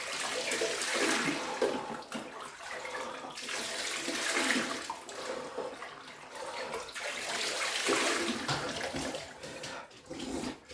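Jug of ice water poured over the head three times, splashing back into a chest-freezer ice bath; each pour is a swell of splashing lasting about three seconds.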